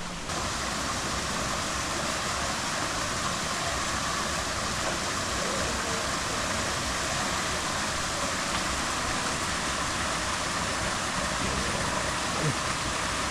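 Water of a small, low-flow waterfall falling and running over rocks, a steady rushing hiss.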